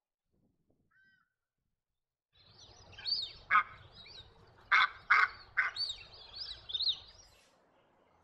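Australian white ibis calling at a nesting colony: several loud harsh squawks among higher, falling whistled chirps. The calling starts about two seconds in, after near silence, and stops abruptly about seven seconds in.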